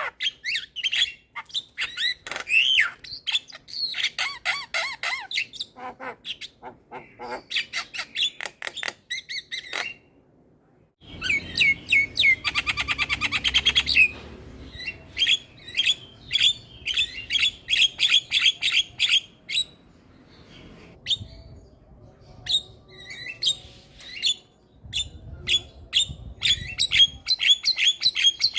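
Javan myna singing a busy, varied song of sharp chirps, squawks and rapid clicking runs, with a short break about ten seconds in and a fast rattling chatter soon after.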